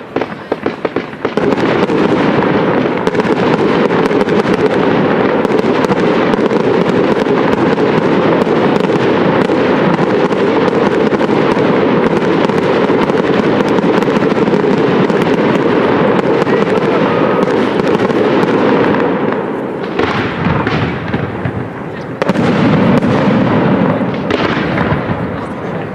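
Fireworks going off in a dense, continuous stream of rapid pops and bangs. It thins out about twenty seconds in, then picks up again near the end.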